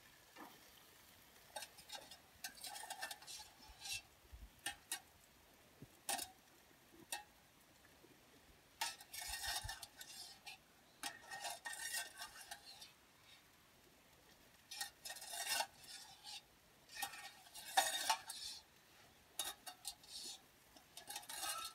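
A hand rummages in a small stainless-steel camp pot, fishing out crawfish. Irregular clinks and scrapes sound against the metal, coming in short flurries with quiet gaps between.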